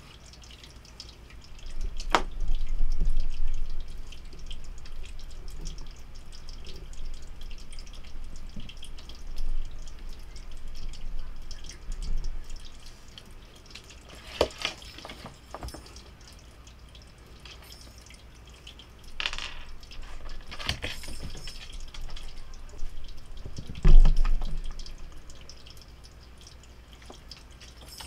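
Small toy ball knocking and rolling on a wooden floor as a cat bats and chases it: a scattering of sharp taps with a few dull thumps, the loudest thump about 24 seconds in.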